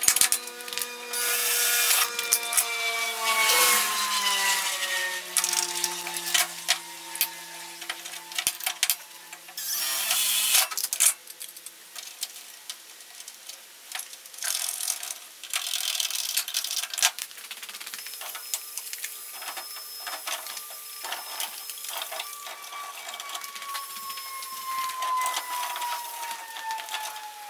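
Power drill running in short bursts amid clicks and knocks of hand tools, as a fibreglass bubble arch is drilled and bolted onto a car's front wing.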